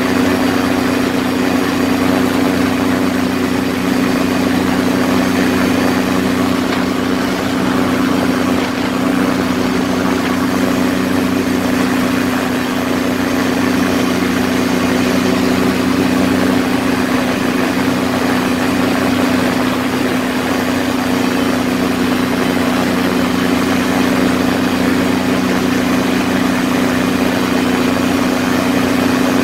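Quicksilver ultralight's engine and propeller droning steadily in level flight, with rushing air over the open seat.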